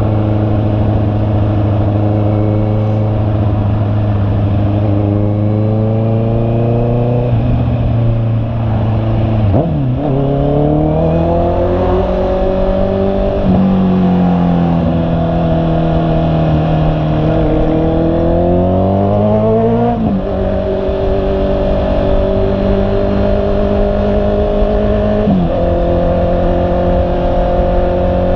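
Honda CB650R's inline-four engine running on the move. Its pitch holds steady, rises under acceleration and drops sharply several times at gear changes.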